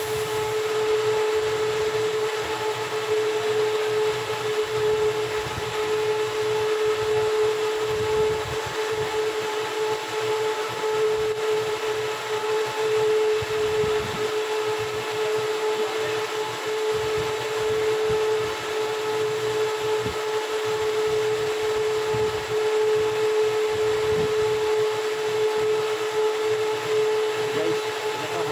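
Steady hum of running machinery with a constant mid-pitched whine that does not change, over irregular low rumbling.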